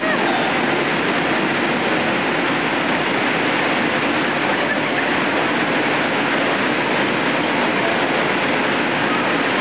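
Steady rushing noise of the electric air blowers that keep the inflatable bounce houses up, even and unbroken.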